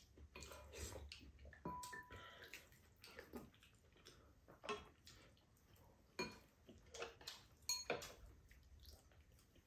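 Faint table sounds of a meal: metal spoons and chopsticks tapping and scraping against ceramic bowls, in scattered short clicks, with quiet chewing and sipping between them.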